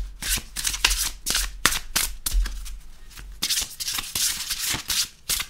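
A 44-card oracle deck shuffled by hand: quick papery flicks and slaps of cards sliding past each other, with a longer rustling run about three and a half seconds in. The cards slide smoothly and shuffle well.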